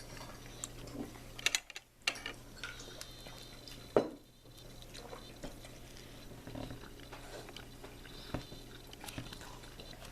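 A person chewing food, with a few sharp clicks, the loudest about two and four seconds in, over a faint steady hum.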